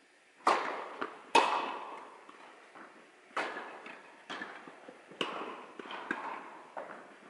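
Tennis ball struck by rackets and bouncing on the court during a rally, sharp pops with a long echo from the large hall. The two loudest hits come in the first second and a half, then quieter hits and bounces follow about once a second.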